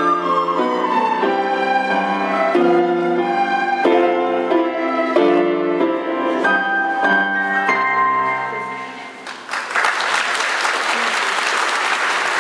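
Children's recorder ensemble with electronic keyboard accompaniment playing the closing phrases of a song. It ends on a held note about nine seconds in, then an audience breaks into applause.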